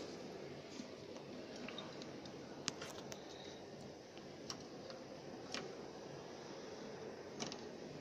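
Quiet room hiss with several light, scattered clicks and taps.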